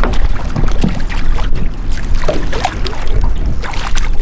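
Wind buffeting the microphone over water slapping against the boat, with short splashes as a hooked crappie is scooped into a landing net.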